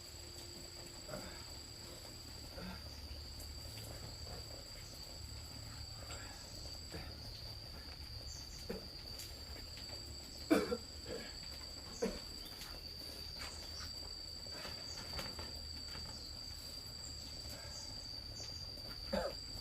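Insects, crickets or similar, trilling in one unbroken high-pitched tone, with a second, higher trill starting and stopping. A few brief louder sounds come about halfway through and again near the end.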